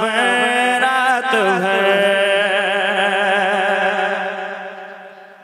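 Male voice singing a naat (Islamic devotional song) wordlessly: quick ornamented turns in the melody, then one long held note that fades out near the end.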